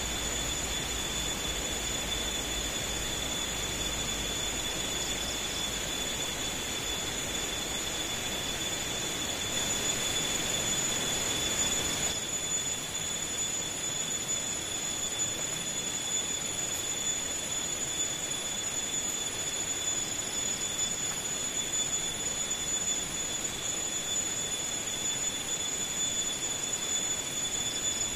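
Insects calling in one unbroken, high-pitched drone over the steady rush of a flowing stream; about twelve seconds in, the lower part of the water noise drops back.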